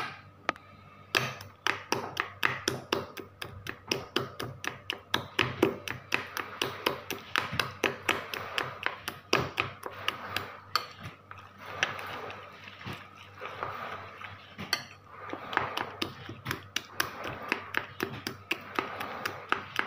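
Metal spoon stirring a wet ground-chicken filling in a ceramic bowl, clinking and scraping against the bowl in a quick, uneven run of taps, several a second, starting about a second in.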